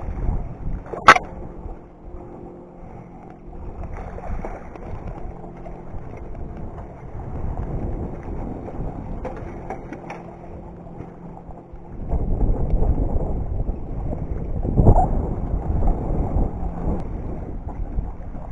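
A landing net splashing as it scoops a northern pike from the water, with a sharp knock about a second in. Handling noises follow, and from about two-thirds of the way through, wind buffets the microphone.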